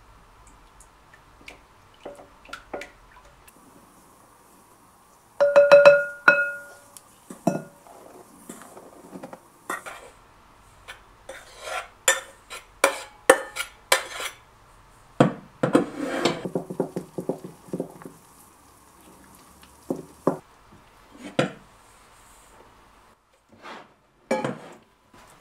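Wooden spoon stirring and knocking against a glass mixing bowl, with a quick run of taps about five seconds in that leaves the bowl ringing. Then clinks and scraping as flour is tipped in from a stainless-steel bowl, and bursts of knocking as the spoon mixes the flour and water into a stiff dough.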